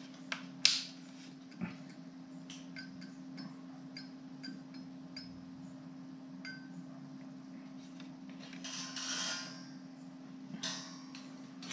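Quiet room tone with a steady low hum. A sharp click comes about half a second in, with a few fainter clicks and light ticks after it and soft rustling near the end.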